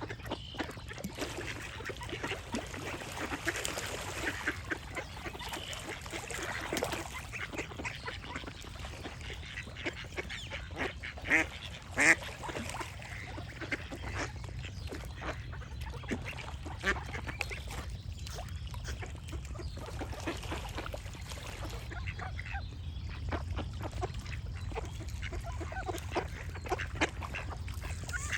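Ducks quacking over and over in short, sharp calls, the loudest two close together about twelve seconds in, over a steady low rumble.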